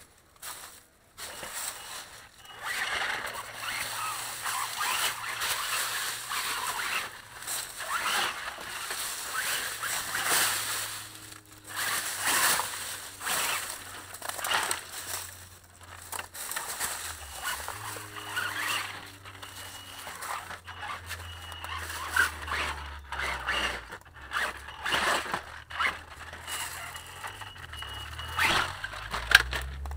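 Axial Yeti RC truck crawling through dry leaf litter and over logs: its tyres crunch and scrape through the leaves in irregular bursts, while the low hum of its electric motor rises and falls with the throttle.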